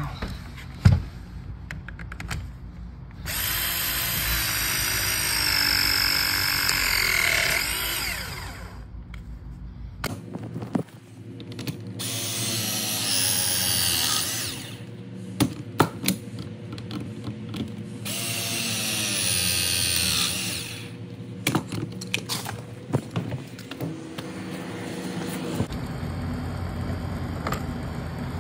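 Battery-powered press tool crimping copper press fittings on a copper water line. Its motor whines in three runs of a few seconds each, the pitch bending as it works, with clicks and knocks of handling between the presses.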